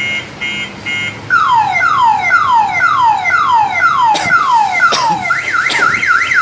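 Electronic alarm siren set off by a motion-sensor light, stepping through its tones: short pulsed beeps, then about two falling sweeps a second from just over a second in, then a fast up-and-down warble from about five seconds in. Two sharp clicks sound near four and five seconds in.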